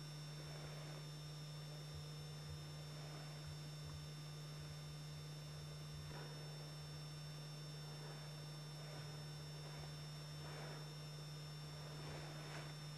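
Steady low electrical hum with a faint hiss and thin high whine, the background noise of an old video recording; no animal or other sound stands out.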